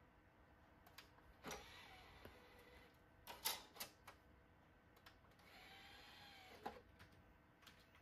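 LITE-ON CD-RW drive's tray sliding out with a short motor whir, a few sharp clicks at the open tray, then a second whir as the tray draws back in, ending in a click. Light keyboard key clicks around it.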